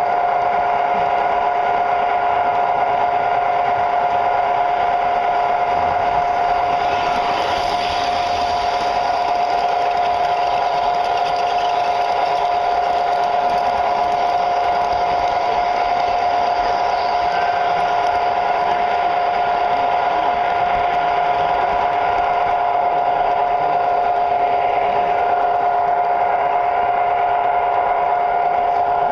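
Tinplate model train running steadily on its track, heard from a car riding on the train: a constant high-pitched electric motor whine over the rolling noise of the wheels on the rails.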